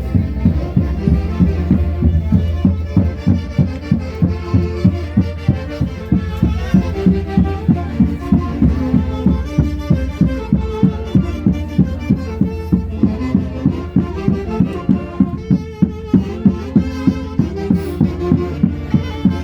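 Andean folk orchestra playing a Santiago tune: melody instruments over a steady thumping beat of about two and a half beats a second.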